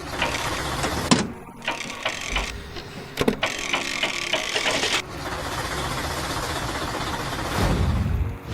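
Construction-machine sound effects, mechanical clicking and running, cut together so the sound changes abruptly several times, with a low rumble near the end.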